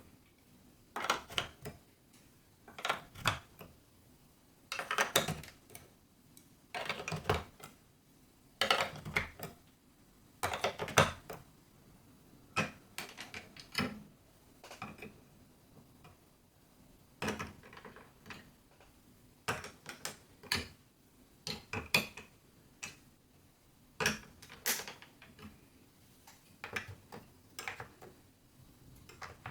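Marbles clacking and rattling down a building-block marble run, in short bursts of hard clicks every second or two.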